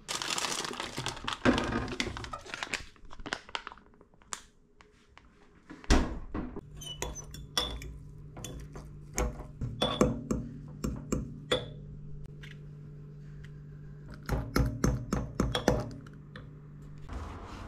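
Metal fork mashing boiled eggs and mayonnaise in a glass jar: irregular clinks and taps of the fork against the glass, in clusters, over a steady low hum. A short burst of kitchen clatter comes first.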